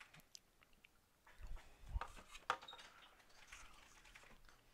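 Faint scattered clicks and soft knocks of small objects being handled, with a couple of low thumps about a second and a half and two seconds in.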